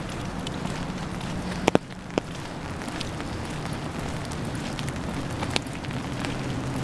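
Steady rain falling, with scattered louder drips tapping on a hard surface over a low steady hum.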